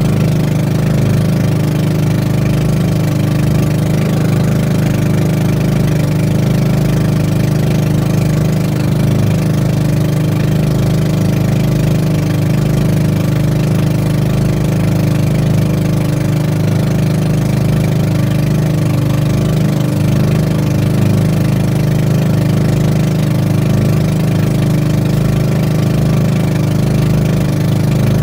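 A small boat's engine running at a steady speed, a loud, even low hum that does not change.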